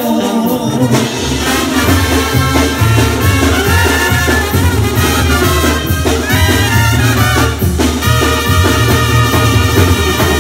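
A live Mexican banda plays an instrumental brass passage: trumpets and trombones over drums, with a heavy low bass line that comes in about a second in.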